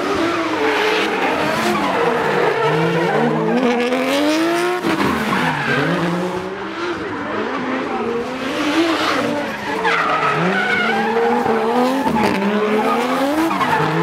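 Nissan Cefiro's RB25 straight-six revving up and down hard through a tandem drift, over and over, with tyres screeching and a second drift car's engine running alongside.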